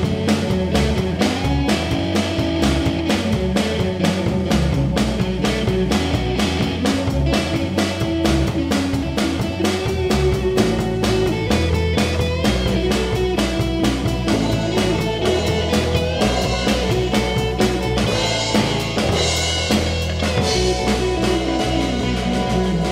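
Rock music with a full drum kit, bass and guitar playing at a steady beat.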